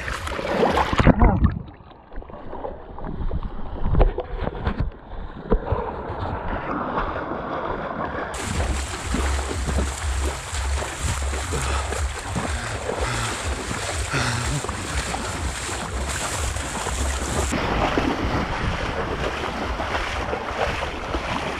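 Water splashing as the action camera goes under, then several seconds of muffled underwater sound. About eight seconds in the camera clears the water and the splashing and sloshing of a person wading through a lake takes over, with wind rumbling on the microphone.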